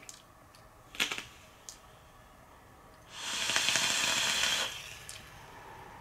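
AceVape Bomb Cat dripper firing during a draw: the coil sizzling and air hissing through the airflow slots, a steady hiss of about a second and a half in the second half. A couple of short clicks come about a second in.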